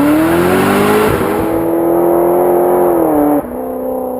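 Off-road vehicle engine revving: the pitch climbs for about the first second, holds at high revs, then drops sharply near the end and starts to fade.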